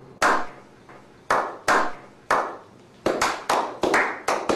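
A small group of people clapping a slow clap. Single claps come half a second to a second apart, each with a ringing tail, then quicken to about four a second from about three seconds in.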